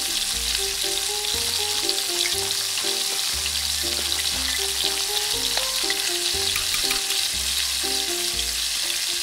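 Hot oil sizzling steadily as small pieces of shrimp and squid fry in a tiny metal wok, stirred with a tiny metal spoon that gives a few light ticks against the pan.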